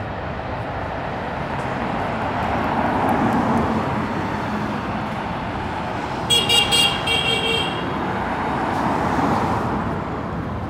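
Cars passing on the road, their noise swelling and fading as each goes by. About six seconds in, a vehicle horn gives a quick run of short toots.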